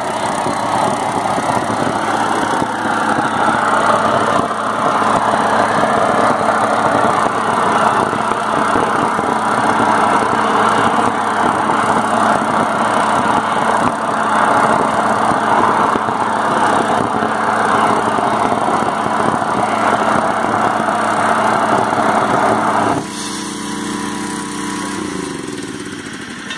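Preheating burner of an SKV aluminothermic rail weld firing into the mould with a loud, steady rushing noise, with a motor humming beneath it. About 23 seconds in the burner noise cuts off suddenly, leaving the quieter hum, which drops in pitch and fades near the end.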